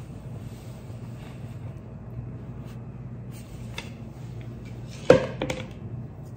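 Quiet kitchen room tone with a steady low hum, broken by a few small clicks and a short knock, the loudest about five seconds in.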